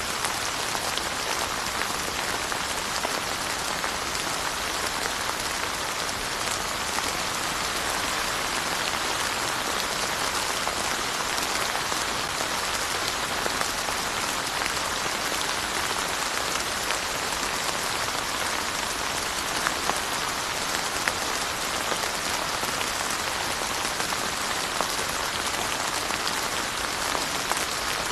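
Steady rain falling: a dense, even hiss of drops with scattered sharper drop hits on a surface.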